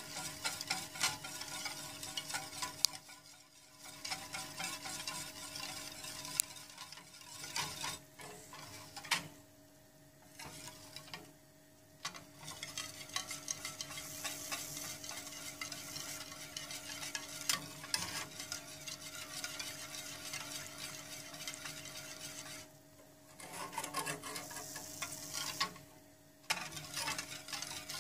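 A utensil stirring and scraping a thin chocolate milk and starch mixture around a stainless steel saucepan, in continuous strokes with a few brief pauses; the stirring is kept up so the starch does not stick to the bottom as it heats. A steady faint hum runs underneath.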